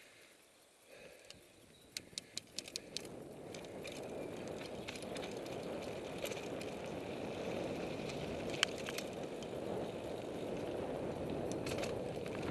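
Mountain bike ridden over a sandy dirt trail: quiet at first, then a quick run of sharp clicks and rattles about two seconds in, followed by a steady rolling, rushing noise of the ride that builds and holds, with one sharp knock past the middle.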